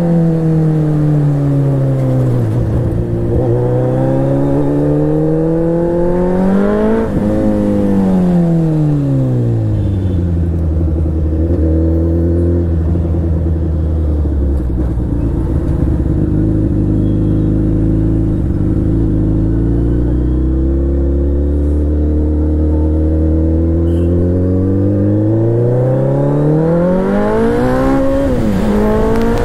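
An engine running and changing speed slowly: it drops, climbs again about seven seconds in, settles to a steady low speed for about fifteen seconds, then rises again near the end.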